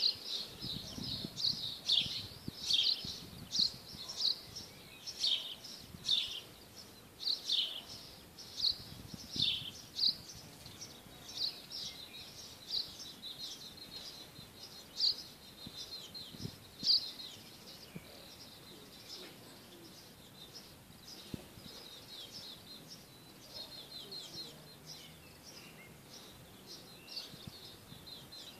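Small birds chirping: many short, high calls come thick and loud for the first ten seconds or so, then thin out into fainter quick runs of notes.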